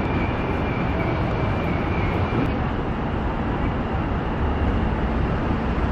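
Steady city street noise: a low rumble of passing traffic.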